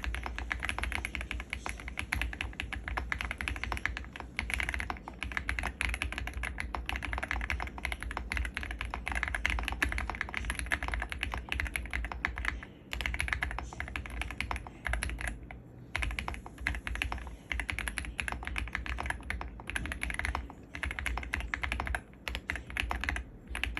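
Fast typing on an Ajazz AKS068 Pro mechanical keyboard with Ajazz Sea Salt linear switches, stock keycaps, a three-layer tape mod and a polyfill mod. A dense stream of keystrokes, broken by a few short pauses.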